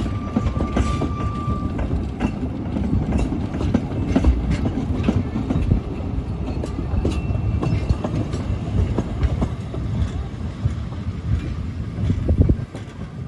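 Narrow-gauge steam train of wooden bogie coaches running past: a steady rumble of wheels on track with clicks over rail joints. A steady high-pitched tone sounds for the first couple of seconds.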